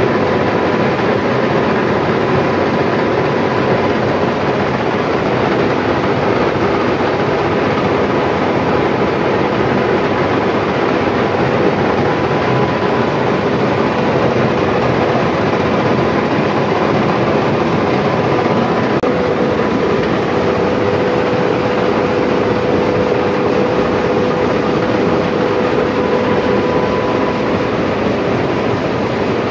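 Old belt-driven rice mill machinery running: a loud, steady mechanical din with a faint steady whine on top.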